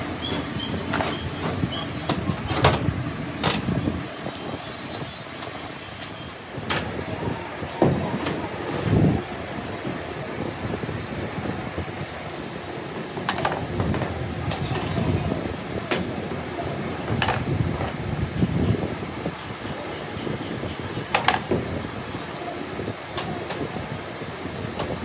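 Scattered metal clinks and knocks of hand tools on an excavator's hydraulic control valve block as it is worked on with a hex key and wrenches, over a steady low rumble of workshop background noise.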